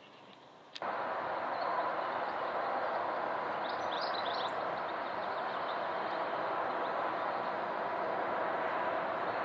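Jet airliner's engines running as it passes overhead on approach, a steady roar with faint held tones in it that starts abruptly after a click about a second in. A bird chirps briefly in the middle.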